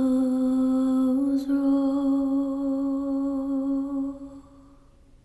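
One long sung or hummed note from a solo voice, held steady and then dying away about four seconds in.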